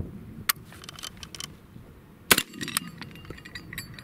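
A sharp metallic click about half a second in, then a single shot from a Catamount Fury II 12-gauge semi-auto shotgun a little past two seconds in, followed by several lighter metallic clinks.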